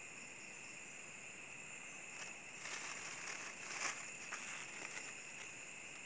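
A plastic bag rustling and crinkling as it is handled, for about two seconds in the middle, over a steady high-pitched chorus of night insects.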